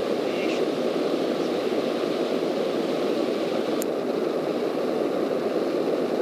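Steady cabin drone of a Cessna's piston engine, propeller and airflow in flight, an even rushing noise with no change in pitch. One short click about four seconds in.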